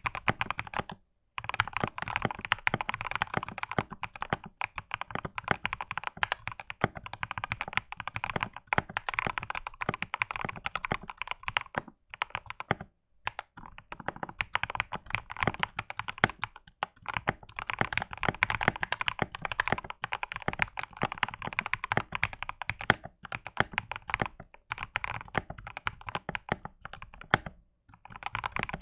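Mechanical keyboard in a wooden case with lubed Gateron Oil King switches, typed on in fast continuous runs: a clean, deep wooden thock, the case dampened with a silicone sheet and polyfill. The typing pauses briefly about a second in, around the middle and near the end.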